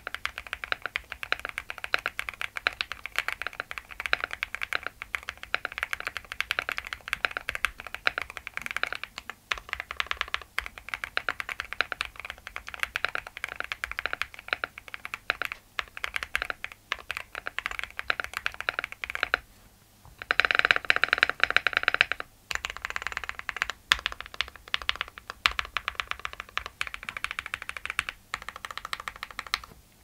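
Fast typing on a QK75 mechanical keyboard with a POM plate, full foam dampening, Aqua King v3 linear switches and PBT keycaps: a dense, continuous run of keystroke clacks, with a louder, denser flurry about two-thirds of the way through.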